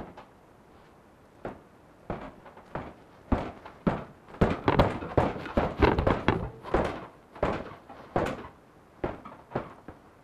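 A series of irregular knocks and thuds: one at the very start, a few scattered ones, then a dense flurry in the middle that thins out near the end.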